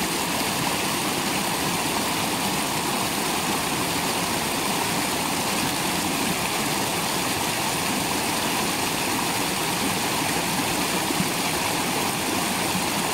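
Small rocky mountain stream rushing and splashing over stones, a steady, even rush of water.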